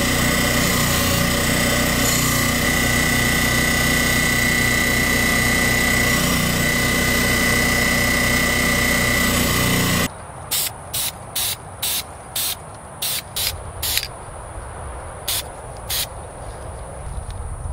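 Delta bench grinder with a wire wheel running steadily with a constant whine, cutting off abruptly about ten seconds in. Then an aerosol spray-paint can is sprayed in about ten short bursts.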